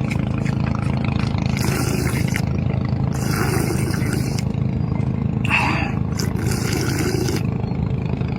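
An engine running steadily at a constant pitch, with a few short spells of hiss over it.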